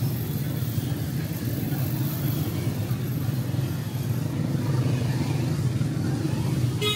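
Motorcycle and car engines idling in jammed street traffic, a steady low rumble. A sudden high-pitched tone cuts in at the very end.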